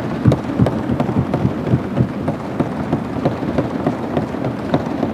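Members of a legislative assembly applauding by thumping on their desks: a dense, steady run of irregular thuds.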